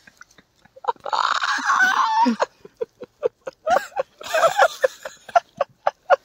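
A young man laughing hard close to the microphone: a quick run of short 'ha' pulses, broken by two longer, louder cackles, the first about a second in and the second near the middle.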